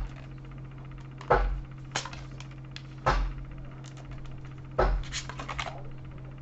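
Tarot cards handled on a tabletop: four sharp knocks about one and a half seconds apart, then lighter clicking and rustling near the end, over a steady low hum.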